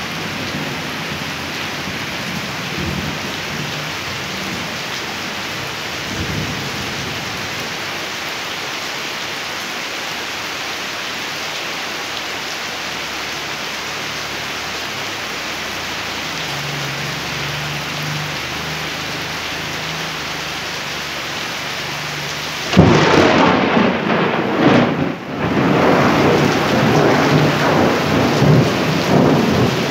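Steady rain falling on the ground. About 23 seconds in, a sudden, loud clap of thunder breaks and keeps rumbling for several seconds over the rain.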